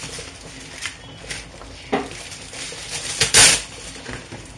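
Sheet of wax paper rustling as it is handled and laid onto a metal baking sheet, with a sharp knock about two seconds in and a loud, brief rustle a little after three seconds.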